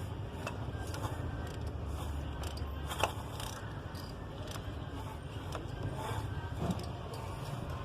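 Mercedes-Benz C200's M271 four-cylinder engine turning over with a steady low drone and a few light clicks, about three seconds in the sharpest. The noise is taken to come from the camshaft adjuster gears, which the mechanic judges faulty even though the chain, guides and gears are new.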